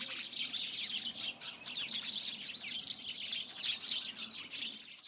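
Dense chorus of many songbirds chirping and singing at once, with short overlapping calls.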